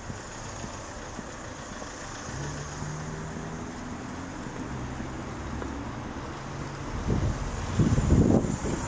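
Street traffic noise: a car engine hums low, its pitch shifting a little. Near the end a louder, uneven low rumble comes in.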